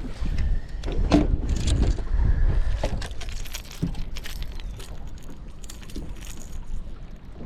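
Fishing tackle being handled on a boat: a string of sharp clicks and light metallic rattles over a low steady rumble.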